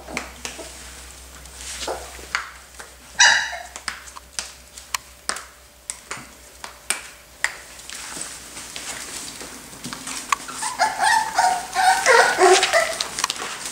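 Pumi puppies yipping and whining while they play: a short yip about three seconds in, then a run of yips and whines near the end, with scattered sharp clicks in between.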